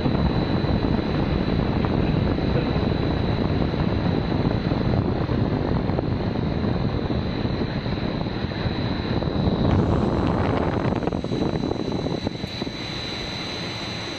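Filled pet-chew extrusion line running: a single-screw extruder and its wire-mesh conveyor make a steady, dense machine noise with a thin high whine. It drops a little in loudness about ten seconds in.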